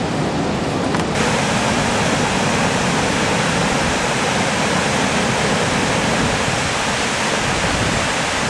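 Rushing river water around a kayak, a steady loud rush that grows brighter about a second in.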